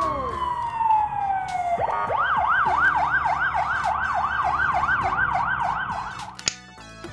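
Emergency vehicle siren sound effect: a tone sliding down for about two seconds, then a fast yelp rising and falling about four times a second, over a low rumble. It stops about six seconds in.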